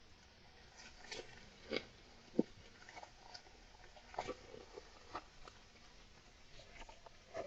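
Golden hamster gnawing and chewing: irregular small clicks, taps and crunches, with the sharpest click about two and a half seconds in.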